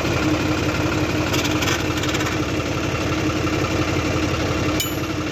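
John Deere tractor's diesel engine idling steadily with an even firing beat, with a few light clicks over it.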